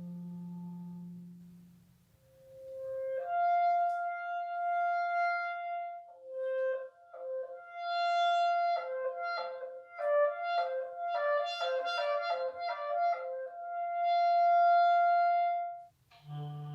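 Solo clarinet improvising. A low note fades out, then come held notes, a fast run of short notes about halfway through, and a long held high note that cuts off abruptly near the end.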